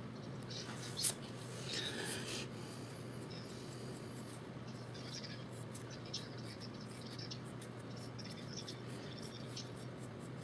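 Pencil scratching over sketchbook paper in short, uneven strokes as lines are drawn, with a sharp click about a second in.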